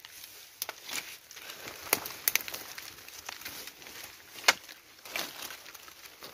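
Footsteps crunching and crackling through dry leaf litter and twigs, in irregular clicks, with a sharper crack about four and a half seconds in.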